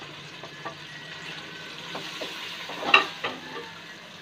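Onions and tomato-garlic-ginger paste frying in oil in a metal pot, a steady sizzle, while spices are scraped in and stirred with a wooden spoon. A few knocks of the spoon, the loudest about three seconds in.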